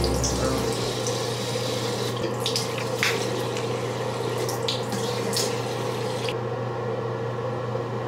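Tap water running into a bathroom sink while cupped hands splash water onto the face to rinse it, with a few sharper splashes partway through. About six seconds in the splashing stops and the hiss of the water thins out.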